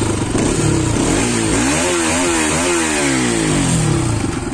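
Bajaj Pulsar RS 200 BS6's single-cylinder engine heard through its underbelly exhaust while the bike stands. It is revved up from idle about a second in, blipped a few times, and falls back to idle near the end.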